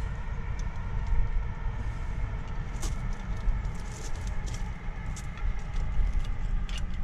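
Scattered metallic clicks and scrapes as a screwdriver prises the badly worn brake pads out of an Isuzu NQR truck's front disc brake caliper, over a steady low rumble.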